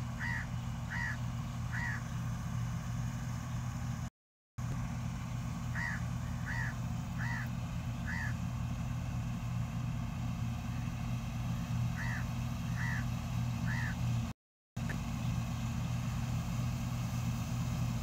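Combine harvester engine running with a steady low hum. A bird calls over it in three short runs of three or four calls each, and the sound cuts out briefly twice.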